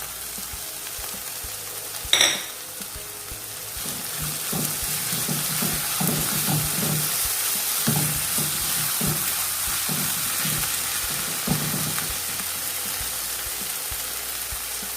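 Onion masala frying in coconut oil, sizzling steadily while a spoon stirs it in rhythmic strokes, about two a second. There is one sharp knock about two seconds in.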